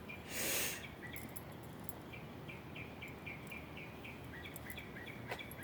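Faint, steady series of short high chirps, about three a second, from a small calling animal, with a brief hiss about half a second in.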